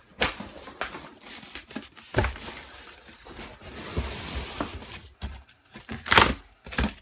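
Rummaging through a box of packaged merchandise: packaging rustling and crinkling, with scattered knocks and clunks of items being moved, the loudest about six seconds in.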